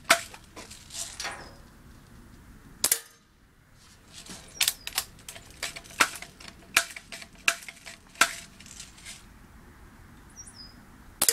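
Remington Airmaster 77 multi-pump BB air rifle being pumped and fired: a string of sharp clicks and snaps. The loudest come just at the start, about three seconds in and at the very end, with a run of lighter clicks roughly every 0.7 s in between.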